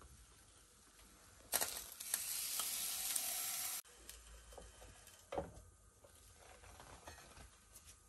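Latch of a Russell Hobbs electric waffle maker clicks open, then the hot cooked waffles sizzle and hiss for about two seconds, stopping abruptly. A short scrape follows as a waffle is lifted off the plate.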